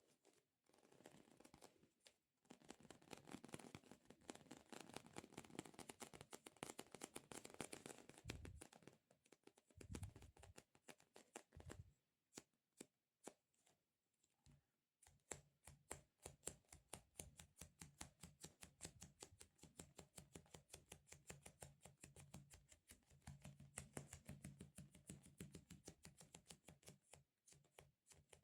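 Rapid tapping and sticky squishing on soft squishy stress-relief toys: quick crackly clicks for several seconds, a short lull midway, then a fast steady run of taps.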